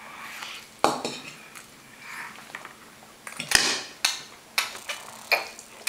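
A plastic baby spoon knocking and clattering on a plastic high-chair tray as a toddler handles it: a handful of separate knocks, the loudest about three and a half seconds in.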